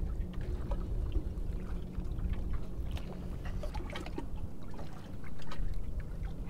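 Water slapping and lapping against the hull of a drifting fishing boat over a low steady hum, with a few small clicks from a spinning reel being handled.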